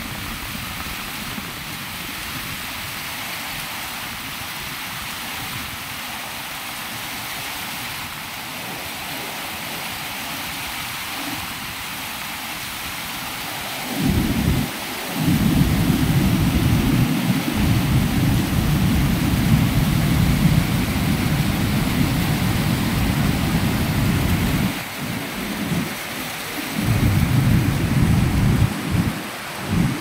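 Rushing white water of a boulder-strewn mountain river, a steady hiss. About halfway through, a loud low rumble sets in and comes and goes unevenly, dropping out several times near the end.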